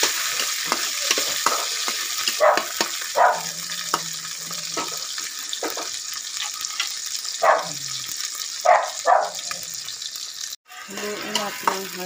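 Garlic, onion and tomato sizzling in hot cooking oil in a pan, with a steady hiss that eases off a little. A spatula scrapes and taps against the pan as the food is stirred. The sound cuts out for a moment near the end.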